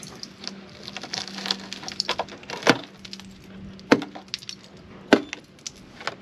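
Rusted-through steel sill of a VW Caddy van crackling and crunching as flakes of rotten metal are broken off by hand. Three sharp, louder cracks come in the second half over a faint steady hum; the sill is so corroded that it keeps breaking away.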